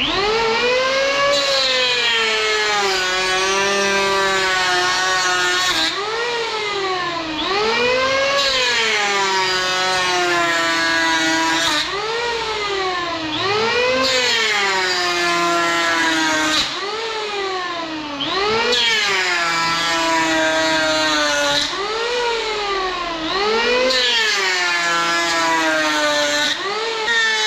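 Powerhouse PHM-1900BX 700-watt electric hand planer planing palochina pine. Its high motor whine climbs briefly in pitch and then sags as the blades bite into the wood, about every two seconds with each pass.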